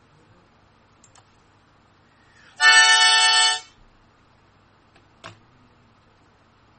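A single held note, flat in pitch and lasting about a second, starts abruptly two and a half seconds in and cuts off just as suddenly. Faint clicks come once before it and once after.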